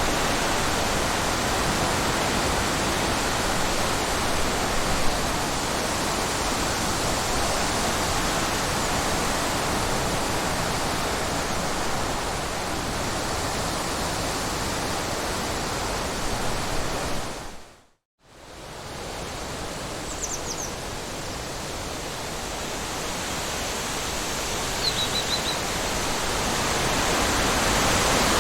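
Steady rushing wind breeze, an even hiss with no pitch, that fades out to near silence about two-thirds of the way through and swells back in. After it returns, a few short high bird chirps sound faintly twice.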